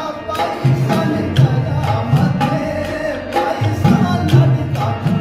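Background music: a song with singing over hand-drum percussion, with a steady beat of low drum strokes.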